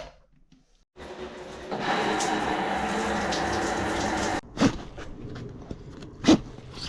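Water running steadily for about three seconds, then cutting off suddenly, followed by a few sharp knocks.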